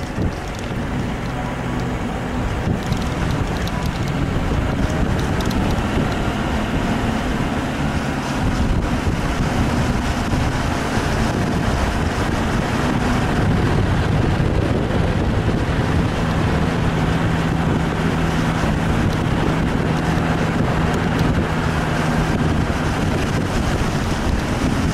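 Vehicle engine humming steadily as it drives up a snowy mountain road, under heavy wind rushing over the microphone.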